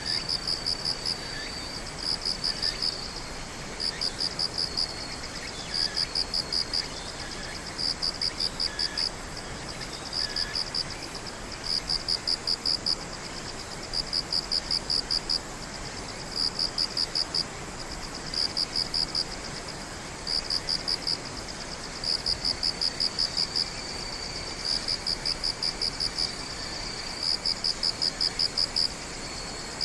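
Night insects chirping: a high, pulsed chirp of about a second, repeating roughly every two seconds, over a steady high trill from other insects.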